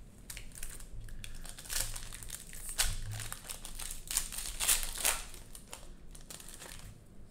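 Cellophane wrapper of a Prizm basketball card cello pack crinkling as it is pulled open by hand, in a run of sharp crackles.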